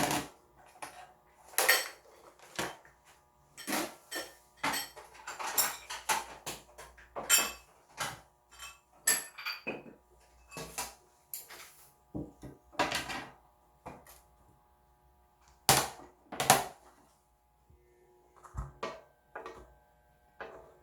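A utensil clinking and scraping against a bowl in irregular strokes, a stroke or two a second, as the egg batter with chopped vegetables and seasonings is mixed. The strokes thin out near the end, and a faint steady hum runs underneath.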